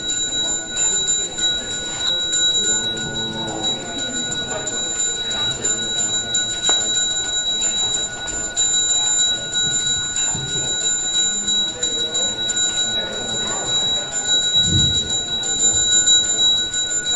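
A priest's hand bell (genta) rung continuously: a steady high ringing with a fast tinkling rattle of the clapper, as used to accompany mantras. A low voice murmurs at times beneath it.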